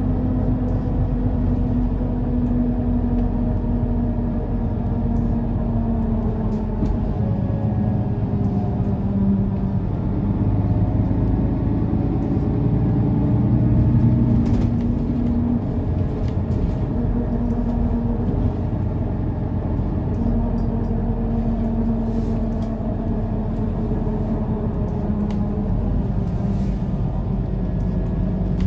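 Mercedes-Benz O530 Citaro city bus driving, heard from inside the passenger cabin: the engine runs steadily, its pitch climbing and then dropping several times as the bus pulls away and shifts through gears, loudest about halfway through.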